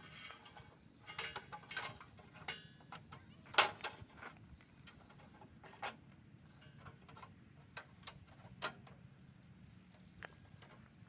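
Scattered light metal clicks and knocks from handling the stopped Wood-Mizer band sawmill's blade and band-wheel housing, with one sharp knock about three and a half seconds in.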